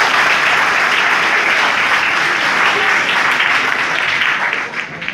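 Audience applauding steadily, fading a little near the end.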